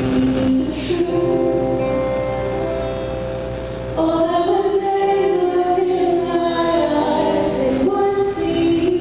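Singing voices performing a slow song with long held notes; one phrase ends about four seconds in and the next begins.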